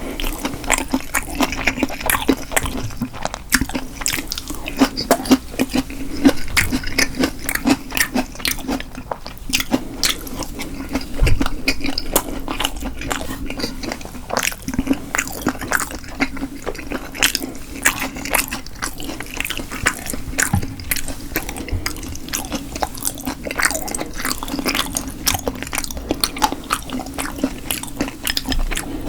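Close-miked chewing and biting of food, with a dense run of quick wet mouth clicks and smacks.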